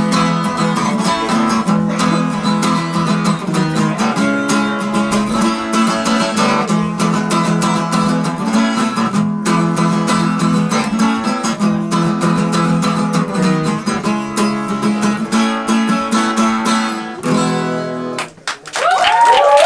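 Acoustic guitar strumming chords steadily with no singing, ending about a second before the close, followed by a cheer with applause starting.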